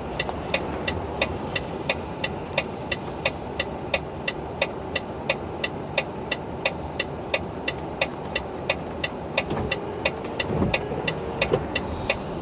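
Lorry cab's indicator ticking steadily, about three clicks a second, over a steady low rumble.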